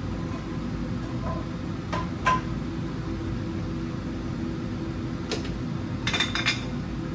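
A few light clinks of kitchenware over a steady low hum. Two clinks come about two seconds in, the second one ringing briefly. Another comes past five seconds, and a quick cluster follows near the end.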